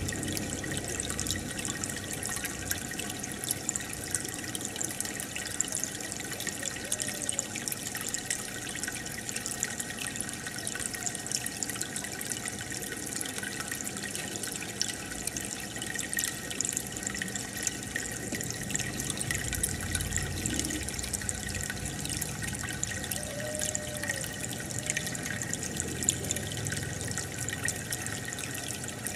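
Steady bubbling and trickling of aquarium water from an air bubbler.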